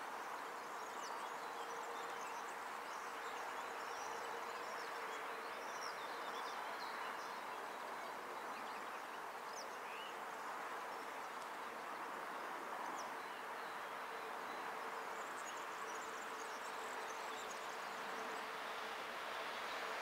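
Faint outdoor ambience: a steady hum and hiss with scattered faint bird chirps.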